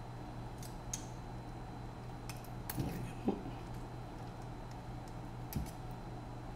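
A few light clicks and taps from small drone parts being handled and fitted by hand, the loudest about three seconds in, over a steady low hum.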